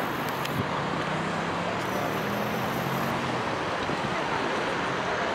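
Steady city traffic noise, with the low hum of a vehicle engine for the first few seconds.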